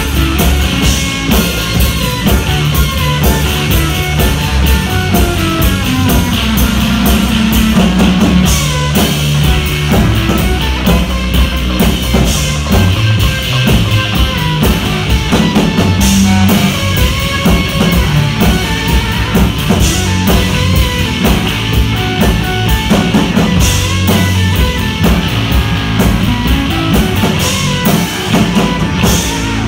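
Live rock band playing loud, continuous music on electric guitar, electric bass and drum kit, with repeated cymbal crashes.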